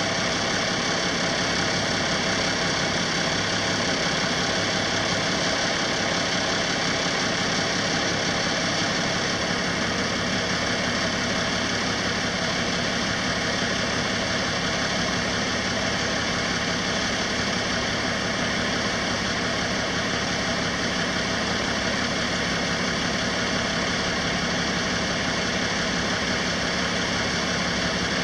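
Six-cylinder diesel engine of a 1982 International S1954 bucket truck idling steadily.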